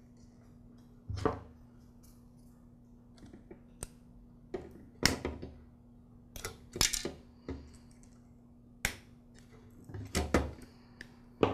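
Needle-nose pliers working the small metal clips off the terminals of a string trimmer's DC motor: irregular light metallic clicks and small knocks of tools and parts being handled, a dozen or so spread unevenly, a few with a dull thud.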